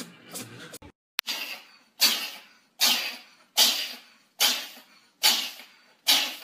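A ginger cat sneezing in a rapid fit, starting about a second in: seven sharp sneezes a little under a second apart.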